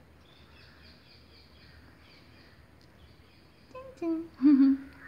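Quiet background with faint, high bird chirps, then a few short vocal sounds from a person near the end.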